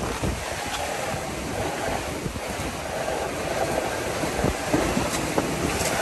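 Steady rush and rumble of water streaming past a Dragonfly 800 trimaran's hulls as it sails at about 16 knots, with wind noise and small irregular thumps of chop against the hull.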